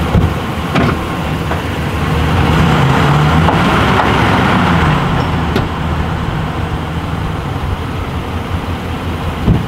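Truck engine idling steadily, growing louder for a few seconds in the middle, with a few sharp knocks, the last one near the end.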